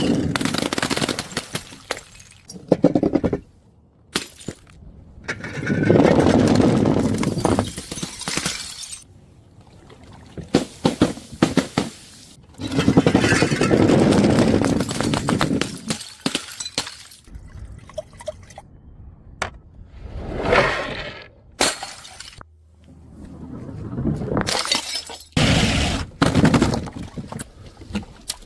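Glass bottles thrown onto stairs, smashing several times, each break followed by shards clinking and scattering.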